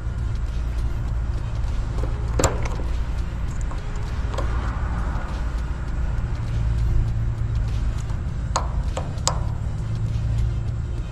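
A steady low rumble with a few sharp clicks and taps, from a dual run capacitor being handled and tested with meter probes.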